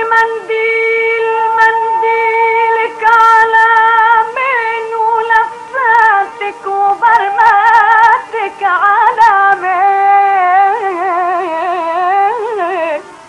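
Instrumental interlude of a classic Arabic song: a solo melody instrument plays a line of held notes. From about halfway it turns into quicker, wavering ornaments and slides.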